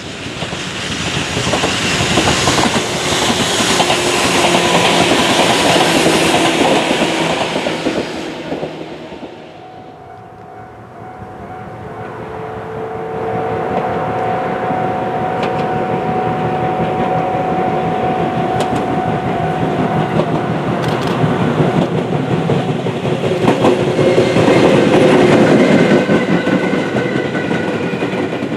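Tobu 6050 series electric train passing twice: a loud pass that fades out about ten seconds in, then another approaching from a distance with a steady whine and clicks over the rails, growing loud as it goes by near the end.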